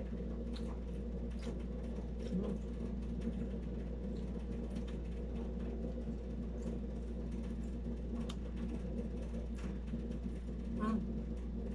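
Steady hum of a room air conditioner, which runs noisily, with scattered small clicks and smacks of chewing and of fingers picking at food.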